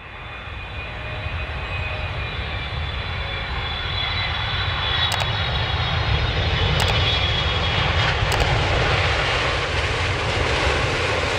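Jet aircraft engine roar with a high turbine whine over a deep rumble, growing louder over the first few seconds and then holding steady.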